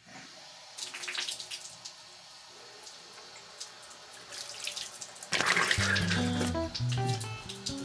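Water running from a tap into a sink, with splashing that gets much louder about five seconds in. Low music notes come in just after.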